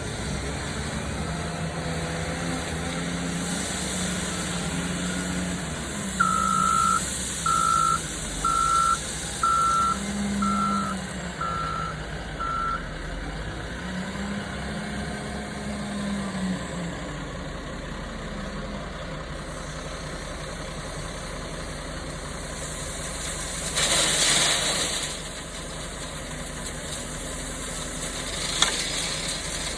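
Excavator engine running under changing load, its pitch rising and falling as the machine works. A backup alarm beeps seven times, about once a second, in the first half. About three-quarters through, a rush of noise lasts some two seconds.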